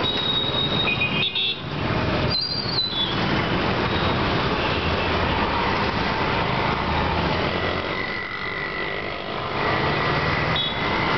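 Dense street traffic at close range: motorcycle, scooter and auto-rickshaw engines running alongside, with short vehicle horn toots near the start, about two and a half seconds in, and again near the end.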